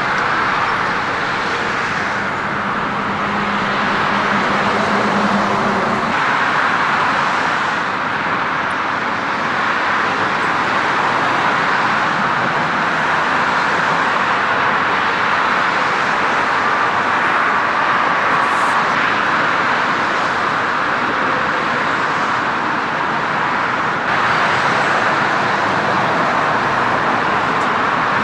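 Steady outdoor din of road traffic, with a brief low hum between about two and six seconds in.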